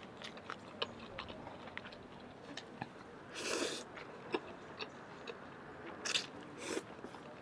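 Eating spicy noodles with chopsticks: wet chewing clicks throughout and noodle slurps, one longer slurp about three and a half seconds in and two short ones near the end.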